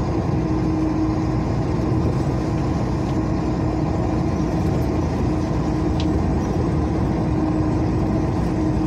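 Steady drone of a truck tractor unit's diesel engine at cruising speed, mixed with tyre noise on wet asphalt, heard from inside the cab.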